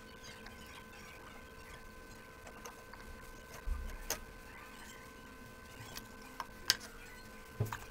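Quiet room with a steady electrical hum, broken by a few soft taps and clicks of fingers handling salad pieces against a plate and bowl.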